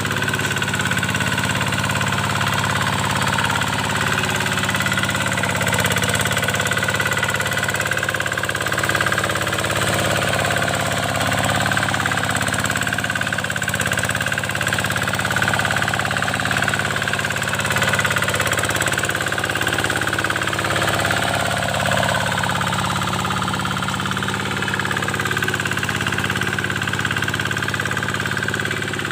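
Kubota single-cylinder diesel engine on a hand tractor running steadily.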